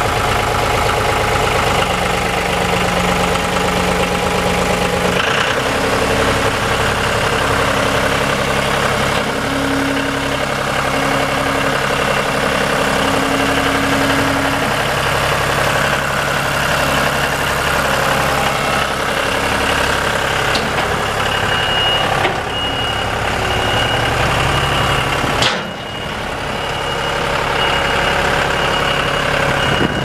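2008 John Deere 5203 tractor's diesel engine idling steadily, its note shifting about five seconds in. A rapid high beeping starts about two-thirds of the way through, with a sharp click a few seconds later.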